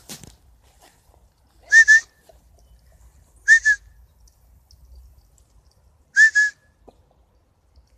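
A person whistling to call a dog: three short double whistles, about two seconds apart, each note rising sharply then held briefly.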